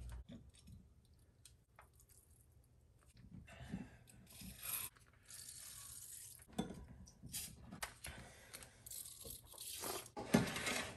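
Faint, irregular crinkling, squishing and clicking from hands working a marinade injector into a raw turkey in a disposable aluminium foil pan. It starts after about three seconds of near quiet.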